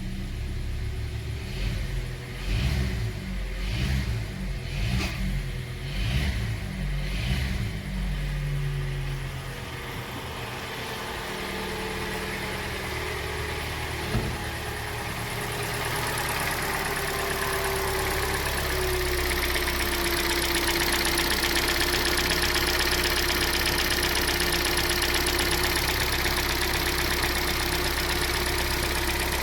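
Hyundai Elantra 1.8 four-cylinder petrol engine running with a knock, pulsing unevenly about once a second for the first several seconds, then settling into a steadier, louder run with a hiss and whine from about halfway. The mechanics trace the fault to jumped ignition timing, a stretched timing chain and a faulty cam phaser (CVVT gear).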